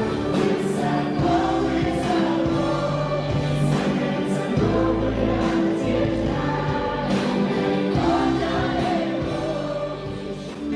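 Background music with sustained choir-like voices over held chords and a bass line, with no clear lyrics; it dips briefly near the end.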